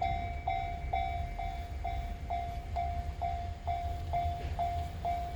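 Japanese railway level-crossing alarm ringing its electronic bell, an even ding about twice a second, over a low rumble.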